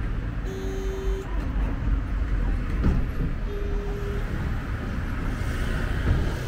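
Antalya's retro nostalgic tram running along its track with a steady low rumble. Two short steady tones sound about three seconds apart.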